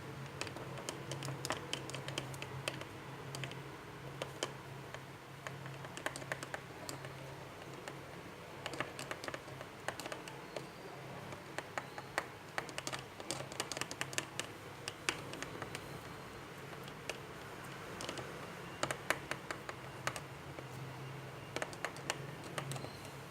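A stirrer tapping and scraping irregularly against the container as glue and water are stirred together for slime, with a steady low hum underneath.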